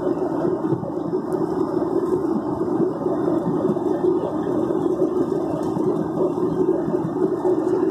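Steady jet airliner cabin noise in flight: the even rumble and rush of the engines and airflow, heard from inside the cabin.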